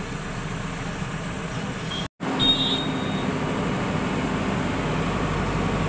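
JCB 3DX backhoe loader's diesel engine running steadily, heard from inside the cab. The sound drops out for an instant about two seconds in, with a brief high squeal just after.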